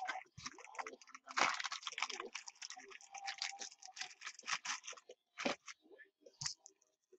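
Crinkling and crackling of packaging being handled close by, a dense run of small crackles from about a second in that thins out after about five seconds.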